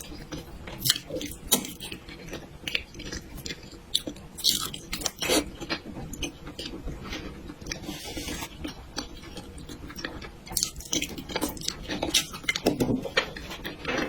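A person chewing food close to the microphone, with irregular wet mouth smacks and clicks.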